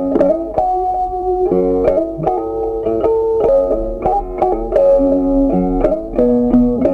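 Background music: a plucked guitar tune with notes and chords picked several times a second.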